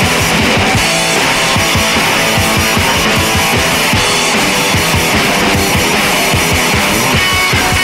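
Loud rock music with guitar over a fast, steady drum beat.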